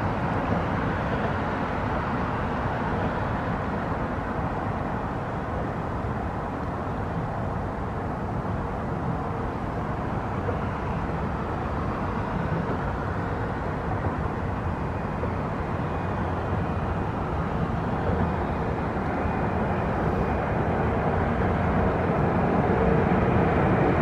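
Steady low rumbling background noise with no distinct events. A faint steady hum grows louder over the last few seconds.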